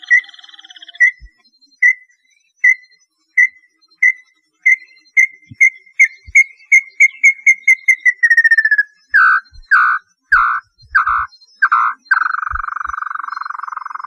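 Small-billed tinamou singing: short whistled notes that speed up from about one a second into a rapid run and slide down in pitch, then five louder, lower notes and a long trill over the last couple of seconds. A buzzy trill from the previous phrase fades out in the first second.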